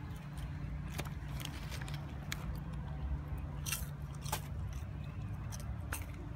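Someone chewing popcorn close to the microphone: irregular crisp crunches and clicks, over a steady low rumble of street traffic.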